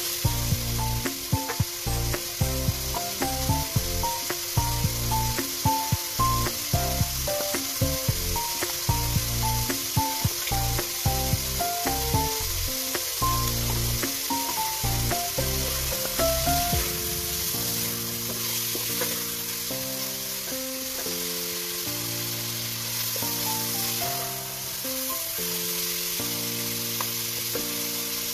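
Meat and spices sizzling in hot oil in an aluminium cooking pot, stirred with a wooden spoon, a steady frying hiss. Background music plays over it, with a beat at first that gives way to long held chords about two-thirds of the way through.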